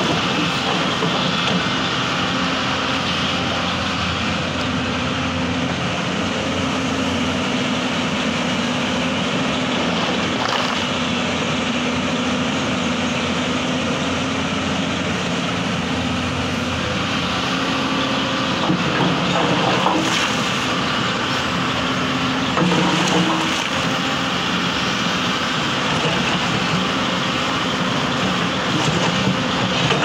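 Hyundai crawler excavator's diesel engine running steadily under working load, its pitch shifting now and then as the hydraulics work. A few clanks of the bucket and stones come through, around ten seconds in and again near twenty seconds.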